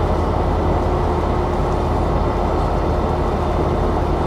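Steady low rumble of a moving car, road and engine noise heard from inside the cabin.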